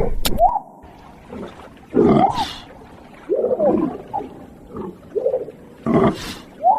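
A series of short animal calls from cartoon creatures, about seven in all, spaced roughly a second apart, several of them sliding up in pitch. A sharp click comes just after the start. The loudest calls come about two seconds in and again near the end.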